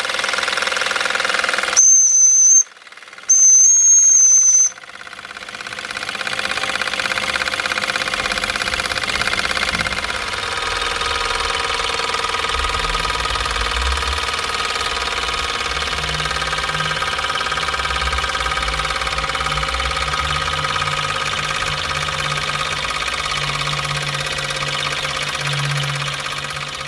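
Mamod SE2a toy steam engine's boiler whistle blown twice, a shrill steady whistle about two seconds in and again just after. Then the engine's single oscillating cylinder runs on steadily under steam, with a continuous steam hiss and mechanical chatter.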